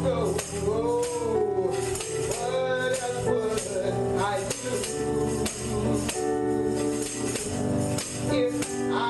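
Gospel church music: a voice singing a sliding melody over sustained chords, with a tambourine shaking and striking in steady rhythm.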